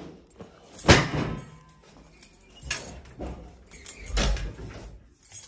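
A loud thump about a second in as the lifted mattress drops back onto the metal bed frame, then knocks and rattles from a wooden wardrobe door being opened.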